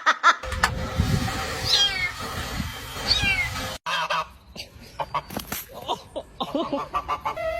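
A cat meowing twice, short high calls that fall in pitch, over a low rumbling noise; after a break come a few scattered clicks and taps.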